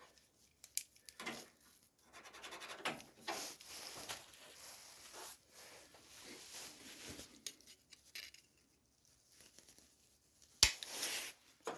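Faint, intermittent scraping, rubbing and small clicks of a metal repair piece being handled and tried in place, with one sharp click about ten and a half seconds in.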